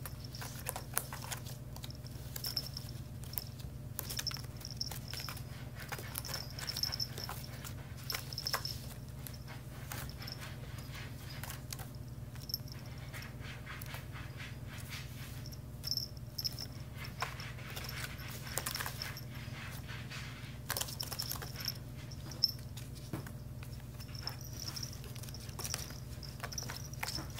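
A kitten's claws scratching and rustling on a woven basket as it tumbles about chasing its tail: irregular light clicks and scrapes over a steady low hum.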